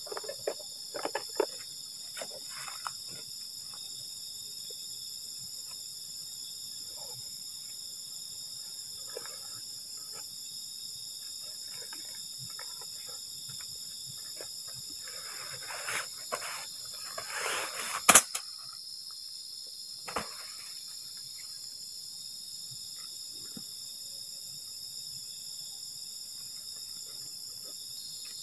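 A steady, high-pitched chorus of night insects trilling at several pitches at once. Over it come scattered rustles of plastic bags and camping gear being handled, thickest just before one sharp loud click about eighteen seconds in.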